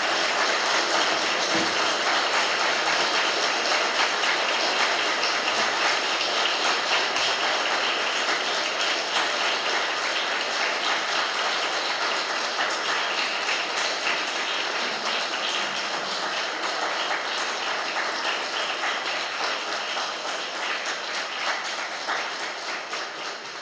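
Audience applauding: many hands clapping in a steady, dense stream that slowly dies away near the end.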